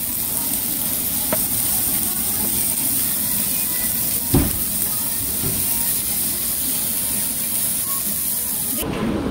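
Beef slices sizzling steadily on a hot grilling stone, with a single sharp knock about four seconds in. The sizzle cuts off shortly before the end.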